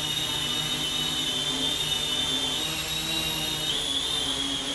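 Syma X25 Pro quadcopter hovering, its propellers and motors giving a steady high whine that wavers slightly in pitch, dipping a little past the middle and stepping up again near the end as it holds position.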